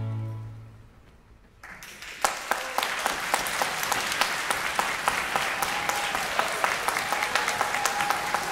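The string orchestra's final chord fades away in the first second, then after a short hush audience applause breaks out just under two seconds in, with sharp single claps at first that quickly fill into steady clapping.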